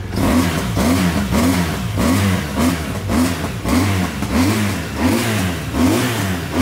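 BMW R1200 boxer-twin motorcycle engine revved in quick repeated throttle blips, about one and a half a second, each a rise and fall in pitch, while it warms up after being started.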